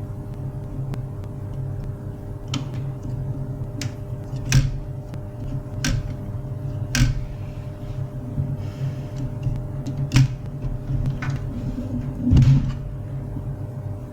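Irregular clicks and clunks of hard plastic parts being handled, one or two every second or so, over a steady low hum. They fit the HP LaserJet 401 laser printer being worked on by hand.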